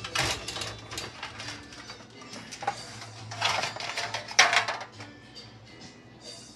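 Stacked ceramic dishes and a nested plastic container clinking and scraping as they are lifted and sorted to get out a baking pan, with a few irregular knocks, the sharpest about four and a half seconds in.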